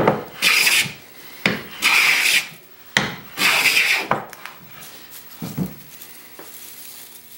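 Hand plane with a sharp iron set for a heavy cut, taking thick shavings off a rough sipo mahogany board: three loud cutting strokes in the first four seconds and a shorter, fainter one a little later, with sharp knocks as the plane is set down. Quieter after about six seconds.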